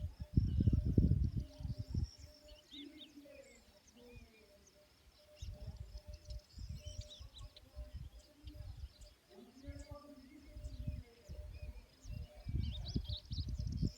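Birds chirping outdoors, with many short high calls scattered throughout over a faint steady high-pitched hum. Low rumbling comes and goes, loudest at the start, in the middle and near the end.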